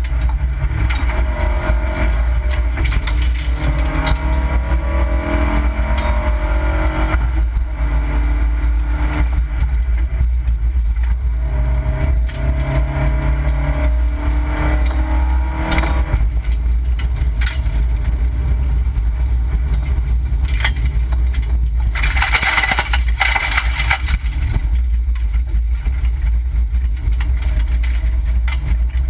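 Opel Corsa B rally car's engine heard from inside the cabin under hard acceleration, its pitch rising through the revs and dropping back at each gear change, over a steady low rumble. About 22 seconds in, a harsh scraping rush lasts about two seconds.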